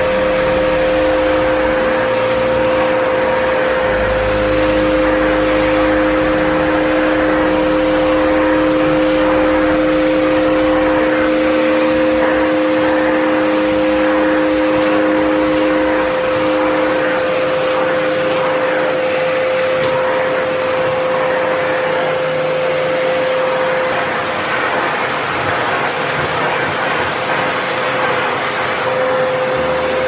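Kärcher WD3 wet and dry vacuum cleaner running steadily, a loud rush of suction under a constant motor whine, with a lower tone that comes and goes as the air flow through the hose and nozzle changes.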